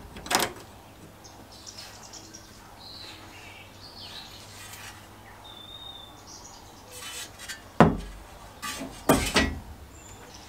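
Metal latch of a sandblasting cabinet door clicking open, then a rusty sheet-steel lawnmower panel knocking and clattering against the cabinet's steel twice, about eight and nine seconds in. Birds chirp faintly in between.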